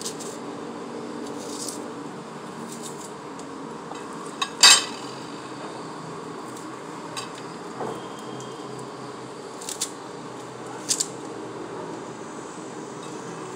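A few scattered clinks and knocks of kitchen utensils against dishes during food preparation, the loudest about four and a half seconds in, over a steady low background hum.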